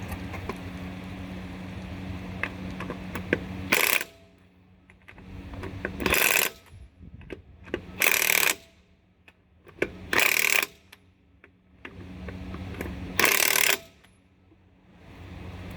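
Five short bursts from a power tool, most likely an impact wrench working a trailer wheel's lug nuts, spaced about two to three seconds apart over a steady low hum.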